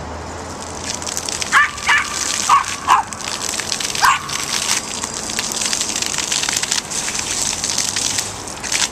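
Yorkshire terrier barking five times in quick succession, in the first half, at a small water spout. Under the barks, the steady hiss and patter of the spraying, splashing water.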